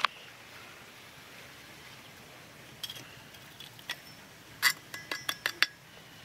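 Metal clinking: lineman pliers knocking against and gripping thin aluminum plates on concrete, a few scattered taps and then a quick run of ringing clinks about five seconds in.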